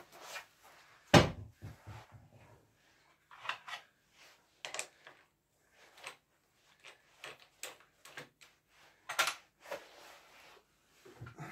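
Knocks and metallic clicks of a large alder blank being seated against a lathe's metal chuck while the chuck is worked by hand. The lathe is not running; one heavy knock about a second in is the loudest, with another strong one near the end.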